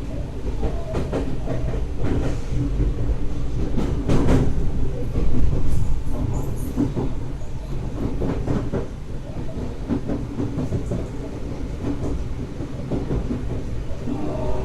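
Inside a Tokyo Metro 03 series subway car running on the line: a steady rumble of wheels on rail with irregular clicks from rail joints. A rising motor whine begins near the end.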